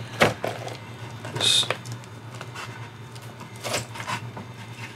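Frog skin being pulled off the legs with skinning pliers: a few short tearing and rubbing sounds, with a sharp click near the start.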